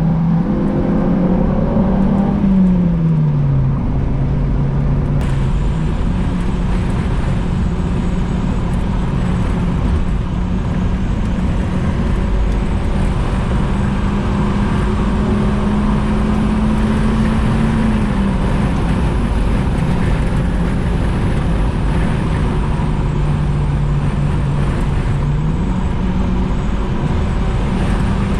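H22A-swapped Honda Accord wagon's 2.2-litre DOHC VTEC four-cylinder running on the road over steady road noise, its note falling and rising in pitch a few times as speed changes. It is running with the check engine light on, so VTEC is not engaging.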